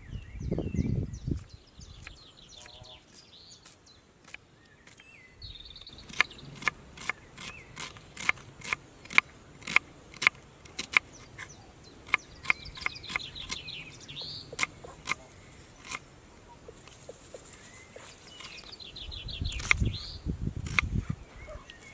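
A run of sharp knocks, roughly two a second, for about ten seconds in the middle, over birds twittering throughout. There is a low rumble about a second in and again near the end.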